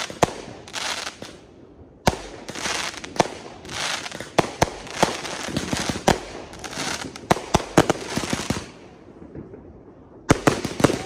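Aerial fireworks bursting: many sharp bangs over dense crackling, with a brief lull about two seconds in and a longer lull near the end before a fresh run of bangs.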